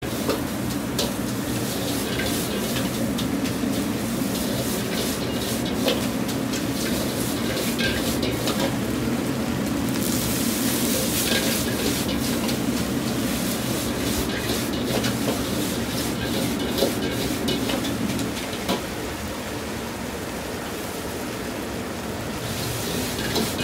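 Char kway teow, flat rice noodles, sizzling in a wok over the steady low rumble of a restaurant wok burner, with the ladle clinking and scraping against the wok as the noodles are tossed. The sizzle is loudest about halfway through, and the sound eases a little about eighteen seconds in.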